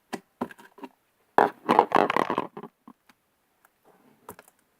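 Sticky homemade glue slime being squeezed and pulled apart in the hands, squelching and popping in a dense run about one and a half to two and a half seconds in, with a few smaller clicks before and after. The slime is clinging to the hands, a sign of too little borax water as activator, as the maker thinks.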